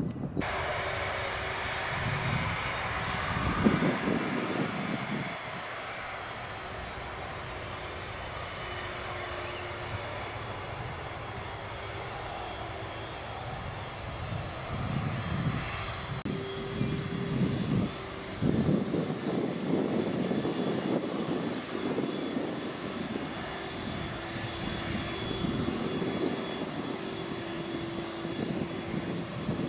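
Twin jet engines of a Boeing 767 airliner running as it lands and rolls along the runway: a steady high whine over the engine noise, which swells and fades several times.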